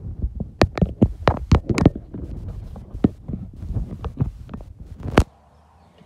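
A rapid, irregular run of heavy thumps and knocks that stops suddenly about five seconds in.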